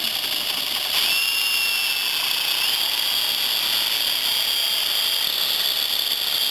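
Cordless reciprocating saw running and cutting through metal, a steady high whine that shifts pitch about a second in and again near three seconds as the blade loads.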